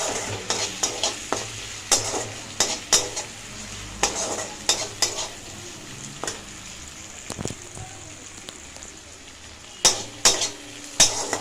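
A spatula scraping and knocking against a kadai while a spiced onion masala fries in oil, with a steady sizzle beneath. The knocks come irregularly, a few a second, thinning out in the middle and bunching together near the end.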